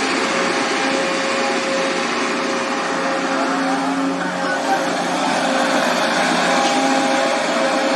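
Excavator engine running steadily at work, with a steady whine over its noise.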